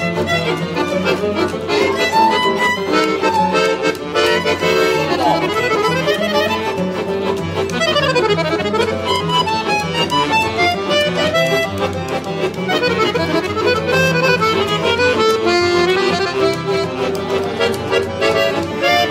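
Pigini accordion playing a lively tune, with quick runs of notes sweeping up and down several times.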